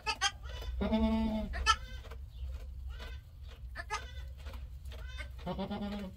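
Boer goat bleating, two short calls: one about a second in and another near the end.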